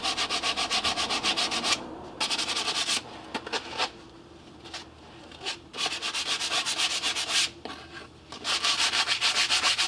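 Hand rubbing-down of the sheet-metal casing of a small caravan oven, an abrasive scraping in quick back-and-forth strokes that prepares the metal for paint. The strokes come in spells, with short pauses about two seconds in, between about four and six seconds, and near eight seconds.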